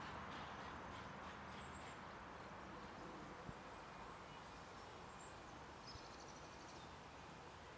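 Faint outdoor hiss with a few thin, high bird chirps and a short, rapid high trill about six seconds in. A single faint tap comes about three and a half seconds in.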